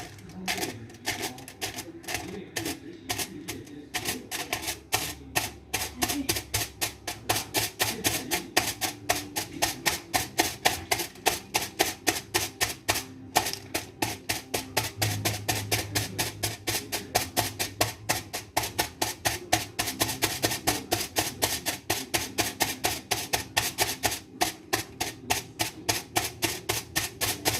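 Aluminium foil crackling in quick, regular sharp taps, several a second, kept up steadily and stopping near the end.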